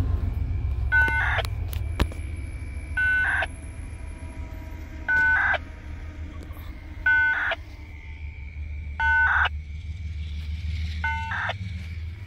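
An electronic beep of a few steady tones, each about half a second long, repeating about every two seconds over the steady low rumble of a passing freight train.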